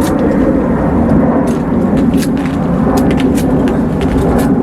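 Airplane passing overhead: a steady, loud, low rumble that barely changes, with scattered small clicks over it.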